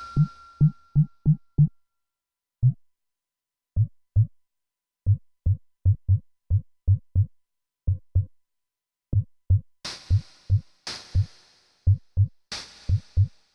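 Synthesized drum hits from the Turquoise Drum Synth iPad app, played on its touch pads: short, low pitched drum hits in an uneven rhythm. About ten seconds in, sharper hissy hits join them, roughly once a second.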